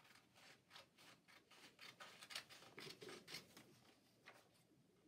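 Scissors snipping through marker-coloured paper in a faint run of short cuts, about three a second.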